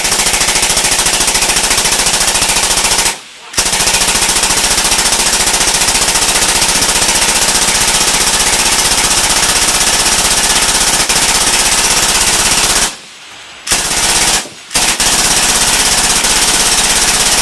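Suppressed belt-fed machine gun firing long bursts of fully automatic fire, broken by three brief pauses, about three, thirteen and fourteen and a half seconds in. The sustained fire has heated the suppressor until it glows red-hot.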